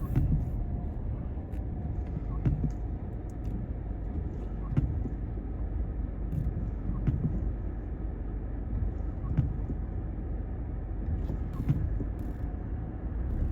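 Steady low road noise inside a moving car, with a few light knocks every couple of seconds.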